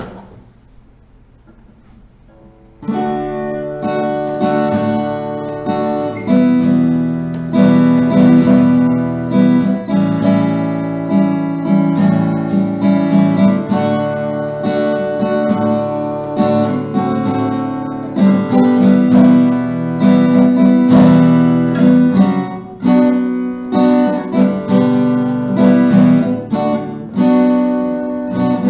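Acoustic guitar strummed, playing an instrumental piece that begins about three seconds in.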